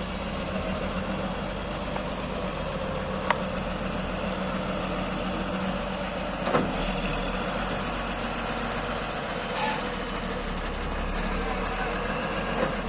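Diesel truck engine idling steadily, with a short sharp click about three seconds in and another about six and a half seconds in.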